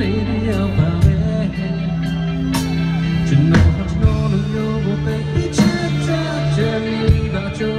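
Live rock band playing loudly, with drum and cymbal hits over electric guitar and a male singer on the microphone.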